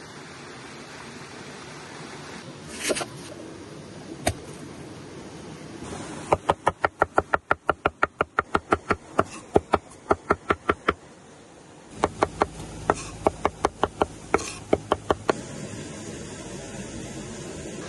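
Knife chopping on a cutting board: a quick, even run of sharp knocks, about five a second, for about five seconds, then after a short pause a sparser, uneven run of chops.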